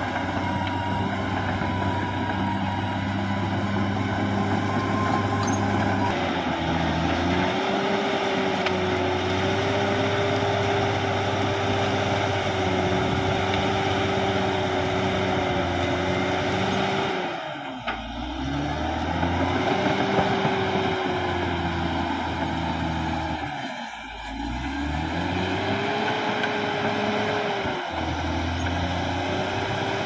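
Caterpillar D6R XL bulldozer's diesel engine working under load with a steady whine, as it pushes brush and debris. Twice, after about eighteen and twenty-four seconds, the revs drop briefly and then climb back.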